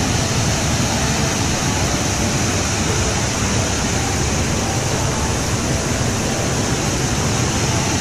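Waterfall cascading over stepped rock ledges: a loud, steady rush of falling water.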